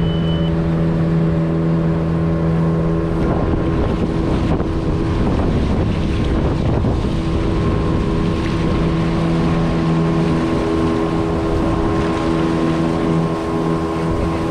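Outboard motor of a small river boat running steadily at cruising speed, with water rushing past the hull and wind on the microphone. Its steady drone is briefly drowned by rougher water and wind noise in the middle.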